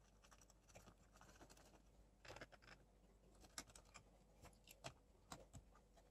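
Very faint, scattered clicks and short scrapes of a small potentiometer being handled and pushed into place in a TV's metal chassis.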